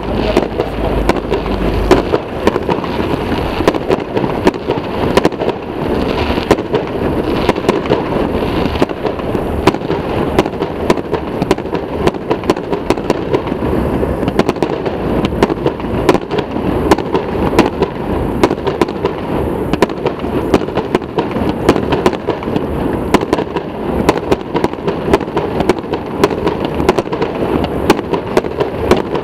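Fireworks display with shells bursting overhead: a continuous rapid run of sharp cracks and bangs, several a second.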